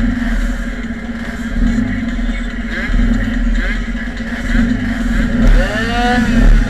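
Motorcycle engines idling, swelling in level every second or so. About six seconds in, a higher engine note rises and falls.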